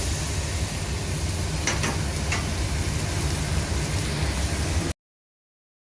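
Steady sizzling hiss of a cowboy steak on a hot grill over a low, steady hum of kitchen ventilation, with a couple of faint clicks about two seconds in. Everything cuts off abruptly to silence about five seconds in.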